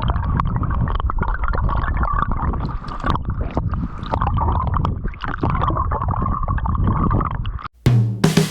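River water gurgling and splashing close to the microphone, with a heavy low rumble and many small irregular splashes. Near the end it cuts off suddenly, and acoustic guitar music begins.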